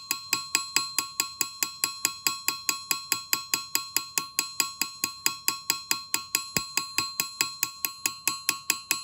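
Ball peen hammer striking a thin annealed non-ferrous metal sheet on a steel anvil in quick, even blows, about five a second, each blow ringing from the anvil. The blows overlap to raise a hammered cobblestone texture, and they stop right at the end.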